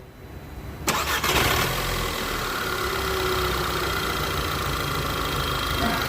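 Volkswagen GTI engine coming in suddenly about a second in, then running steadily at idle.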